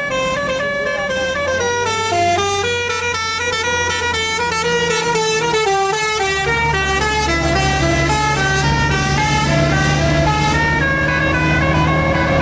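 Telolet basuri multi-tone bus horn playing a fast melody, its notes stepping up and down several times a second. The bus engine hums underneath and gets louder about halfway through.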